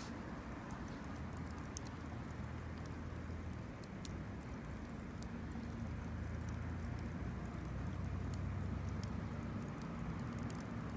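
Wood campfire burning, with scattered sharp crackles and pops over a steady low rumble.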